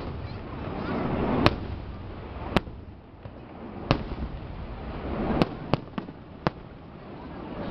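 Aerial fireworks shells bursting: about six sharp bangs at uneven intervals, over a rolling rumble that swells and fades between them.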